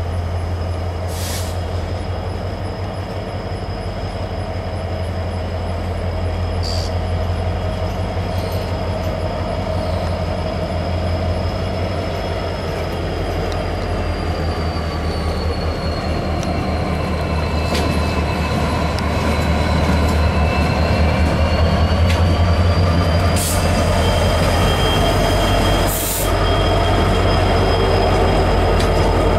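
Union Pacific diesel freight locomotives approach and pass close by hauling tank cars, their deep engine rumble growing steadily louder. A thin high-pitched wheel squeal runs over it, sagging in pitch midway and rising again, with a few sharp clacks of wheels over the rails.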